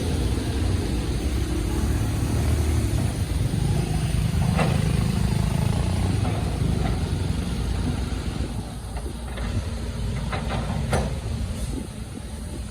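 Small excavator's engine running steadily, easing off a little after about eight seconds, with a few sharp knocks: one around the middle and a couple near the end.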